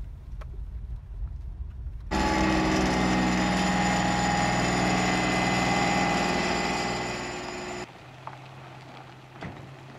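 Low road rumble inside a car, then, after a sudden cut about two seconds in, the engine of a Missouri River cable ferry running steadily, a loud hum made of several steady tones. It eases slightly and cuts off near the end, leaving a quieter low hum.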